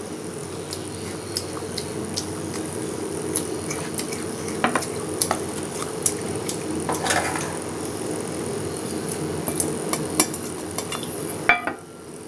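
Scattered light clinks and taps of dishes and a plate during a meal of rice and fish curry, over a steady low hum. A louder clink comes near the end, after which the background hum drops.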